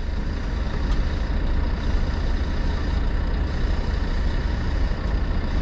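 Heavy truck's engine running steadily, a constant low drone with an even wash of noise above it.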